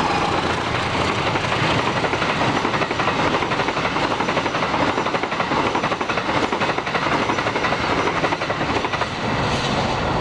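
KAI passenger train's stainless-steel coaches passing close at speed: a steady, loud rush of wheels on rail with rapid clatter over the track.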